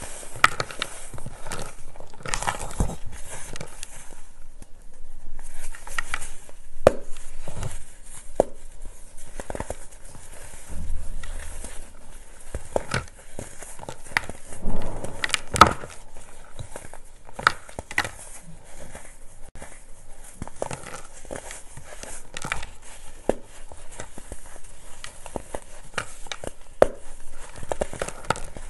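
Hands crushing and crumbling pressed baking soda, compacted clumps crunching and crackling as they break, with powder and small lumps falling back into a plastic tub. Irregular soft crunches over a steady powdery hiss.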